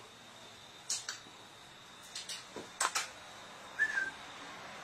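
A dog moving on a hard floor gives several sharp clicks from its claws and chain collar, mostly in the first three seconds. About four seconds in comes one short, high steady tone.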